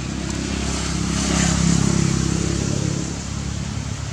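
A motor vehicle's engine passing by, growing louder to a peak just before the middle and then fading away.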